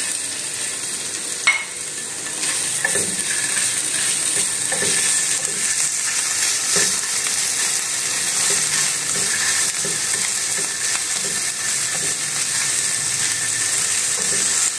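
Garlic-ginger paste sizzling steadily as it fries in hot oil in a frying pan, stirred with a wooden spatula. There is a sharp tap about a second and a half in.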